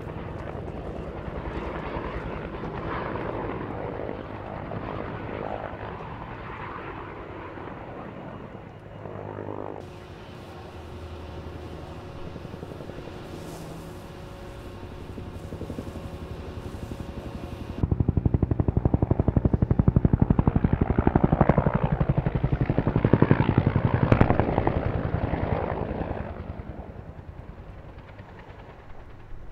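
Firefighting helicopter with a water bucket slung beneath, its rotor chopping steadily. The sound drops to a quieter stretch in the middle, then comes back much louder about two-thirds of the way through and fades near the end.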